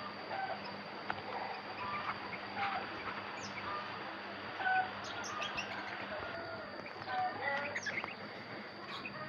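Sooty-headed bulbul (kutilang) giving short chirping calls in scattered bursts, over a steady high-pitched whine.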